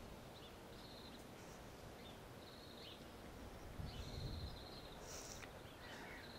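Faint garden ambience with small birds chirping and trilling at intervals. There is a soft low rumble about four seconds in.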